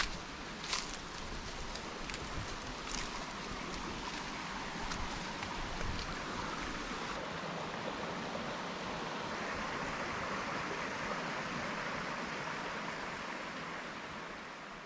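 Steady rush of flowing creek water, with a few faint clicks in the first seconds, fading out near the end.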